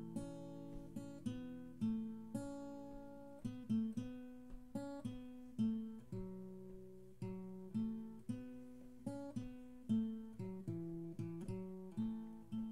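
Instrumental break in a song: acoustic guitar chords picked and strummed one after another, each struck chord left to ring and fade before the next.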